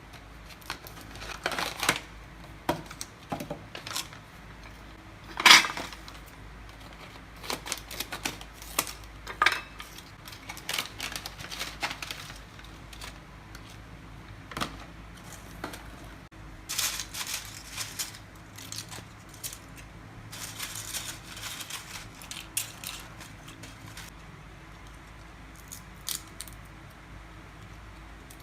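Kitchen food-preparation handling sounds: irregular clicks, clinks and knocks of utensils and dishes, with one louder knock about five and a half seconds in.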